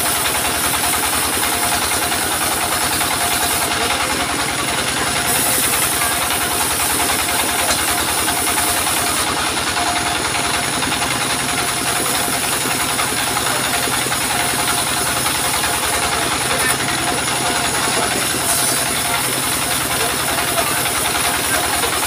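Single-cylinder diesel engine running steadily with a fast chugging beat, driving a table circular saw that cuts through waru-wood boards, the high cutting hiss coming and going in stretches of a few seconds.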